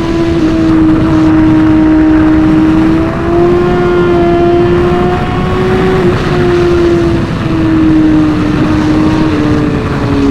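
Suzuki GSX-R1000R sport bike's inline-four engine held at high revs under riding load, its pitch slowly rising and falling with a brief dip about 3 seconds in and again about 7 seconds in, over loud wind rush.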